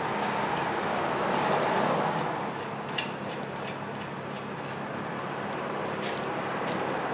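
Steady workshop background noise, with a few light clicks as the brake caliper bracket bolts are handled and started by hand.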